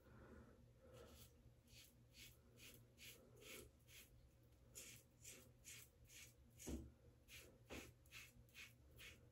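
Faint, rhythmic scrape of a 1978 Gillette Black Beauty adjustable safety razor with a Gillette Nacet blade, set to setting five, cutting through long, overgrown stubble in short strokes about two to three a second, with a brief pause midway. Two soft low bumps come about two-thirds of the way through.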